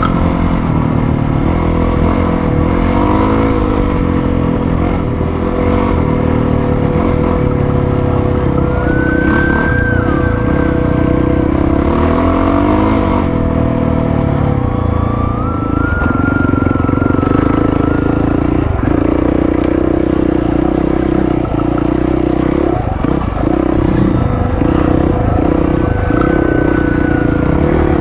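Dirt bike's 450cc single-cylinder four-stroke engine running under way, its pitch rising and falling several times as the throttle is rolled on and off. Occasional knocks and rattles come through in the second half.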